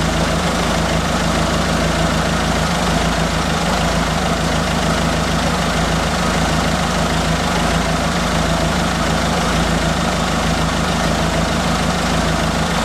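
Citroën Berlingo's 1.6 16v HDi (DV6) diesel engine idling steadily, run so the injector leak-off return fills the test vials.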